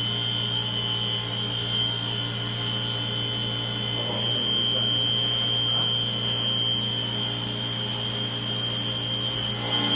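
XCORT 185 mm circular saw's electric motor running steadily with no load, a constant hum under a steady high whine, kept running in a test of how long it can keep going.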